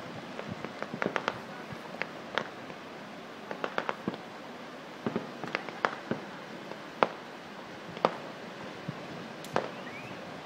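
Fireworks going off in an irregular string of sharp bangs and crackles, some in quick clusters, with one louder bang about seven seconds in.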